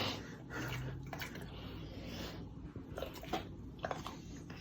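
A boxer dog chewing basil leaves: soft, irregular wet chewing and smacking, with small clicks scattered through.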